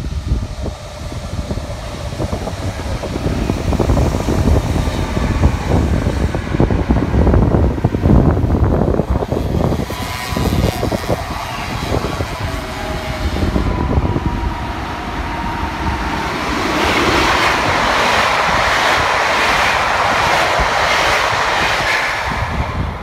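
RER A double-deck electric train running past on the tracks below: a rumble of wheels on rail with a faint motor whine, then a louder steady rushing of rail noise from about 17 seconds in as the cars pass close by. Wind noise on the microphone throughout.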